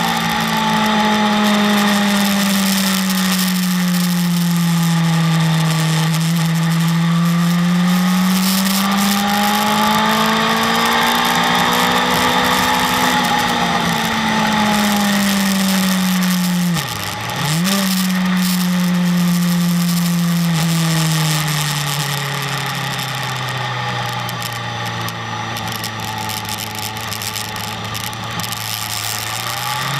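BMW S1000RR's inline-four engine heard from on board, its pitch rising and falling slowly as the throttle is worked through corners, with a sharp dip and quick recovery about seventeen seconds in and a low, even stretch before it climbs again at the end. Heavy wind rush runs under it throughout.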